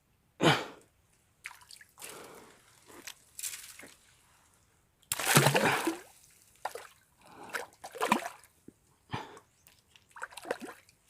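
Water splashing and dripping in irregular bursts; the loudest splash comes about five seconds in and lasts about a second.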